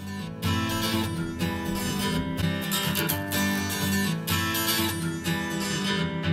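Strummed acoustic guitar in a song played back for a speaker test. The clip starts with the original recording and changes partway through to the same passage played through PreSonus Eris E4.5 studio monitors and picked up by a microphone in the room.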